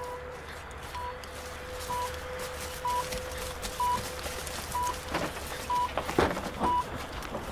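Patient monitor's pulse beep: a short high beep about once a second, steady in rhythm. A few sharp knocks and clatters join in the second half.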